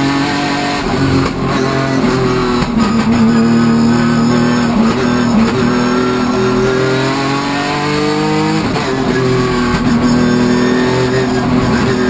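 Hyundai Genesis Coupe hill-climb race car's engine heard from inside the cockpit, pulling hard under load. Its pitch climbs and then drops sharply near nine seconds in, an upshift.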